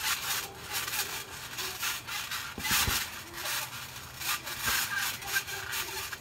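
Trampoline springs creaking in a repeated scraping rhythm as people bounce on it, with a couple of dull thuds from bodies landing on the mat, the heaviest about three seconds in.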